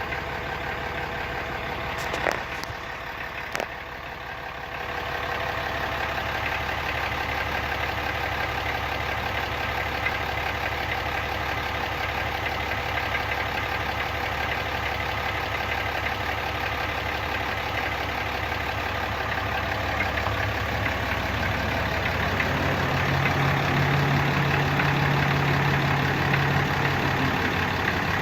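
Cummins 6.7-litre inline-six turbodiesel idling, with the odd rattle that a brand-new 2018 Ram truck makes at idle. Two sharp clicks come about two and three and a half seconds in.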